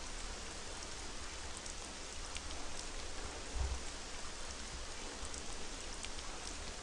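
Steady rain-like hiss with faint, irregular ticks and one soft low thump about halfway through.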